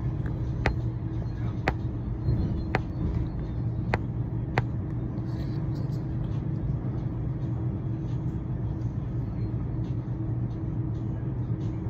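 Steady vehicle rumble with a constant low hum. Five sharp clicks come in the first five seconds, roughly a second apart.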